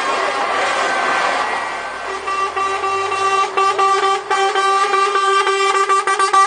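Lorry air horn held on a long steady tone as trucks pass slowly, with a low engine rumble underneath; in the second half the tone is broken by short gaps.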